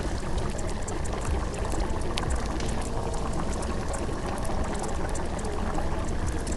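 A steady, even rushing noise like running or pouring water, with a few faint tones drifting underneath.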